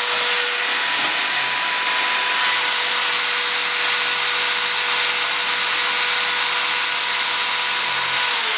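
Electric drill running at a steady speed, its bit grinding into the shattered glass screen of a metal-bodied smartphone. The motor winds down right at the end.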